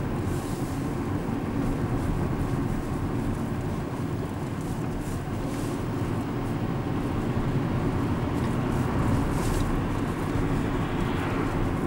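Steady engine and road noise heard from inside a moving car's cabin, mostly low rumble with no sharp events.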